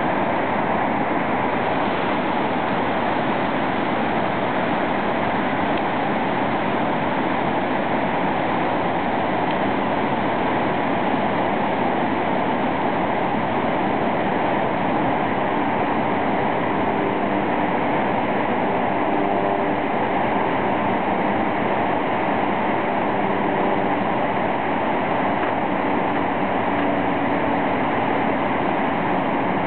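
The steady rush of a large waterfall: the cascades of Iguazu Falls pouring into the gorge, a constant, even noise with no change in level.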